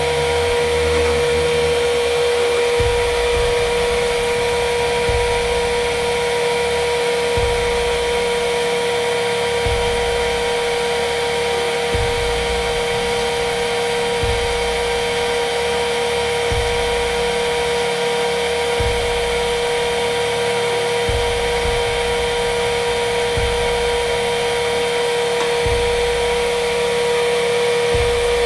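Electric vent fan on a wood-stove pipe running steadily, a held whine over the hiss of rushing air as it pushes the smoke out the stack.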